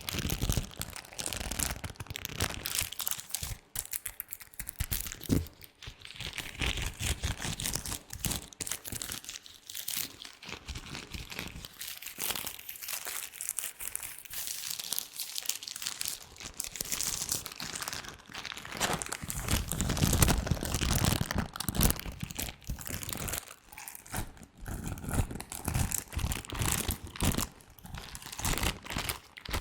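Latex gloves rubbed and handled close to a microphone: continuous, irregular crinkling and rustling with many small clicks, louder and fuller for a few seconds about two-thirds of the way through.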